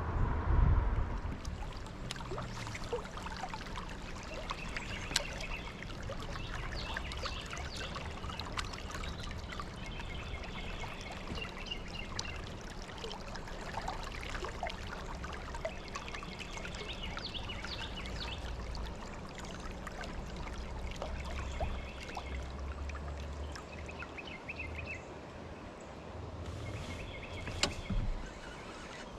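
River water trickling and lapping around a kayak, with scattered small clicks and faint high chirps repeating through it.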